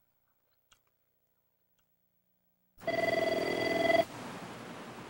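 A telephone ringing once: a single bright electronic ring of just over a second, starting a little under three seconds in and cutting off sharply. A steady hiss follows it.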